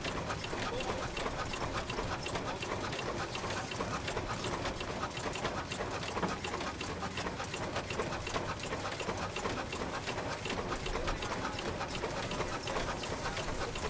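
Christoph & Unmack stationary engine running steadily, with an even, rapid clatter of mechanical clicks from its valve gear.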